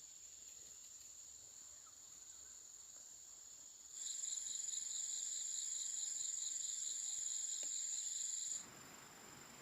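Insects trilling in a steady high drone. About four seconds in, a louder insect call joins, pulsing about five times a second, and it cuts off sharply near the end.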